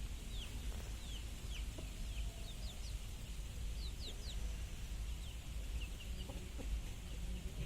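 Desi chickens calling: a scatter of short, high calls that fall in pitch, coming every second or so, over a steady low rumble.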